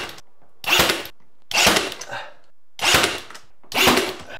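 Ryobi ONE+ HP 18V cordless nailer firing nails one after another, about once a second, to fasten a glued mitred crown molding corner: four sharp, short shots, plus the tail of one just before.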